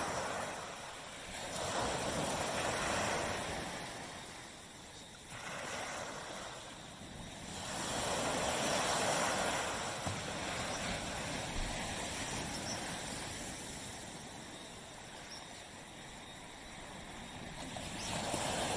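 Surf washing onto a beach: waves swell and fall away in slow surges, loudest about nine seconds in and rising again near the end.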